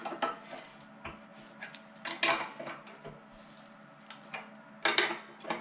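Steel wrench clinking against the nuts and steel mounting plate as an electric motor's mount nuts are tightened down. A few separate sharp metallic clinks, the loudest about two seconds in and again near the end.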